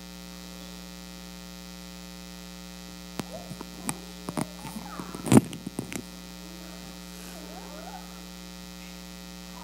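Steady electrical mains hum, with a cluster of knocks and bumps from about three to six seconds in as a microphone on a stand is handled. The loudest is a sharp thud just after five seconds.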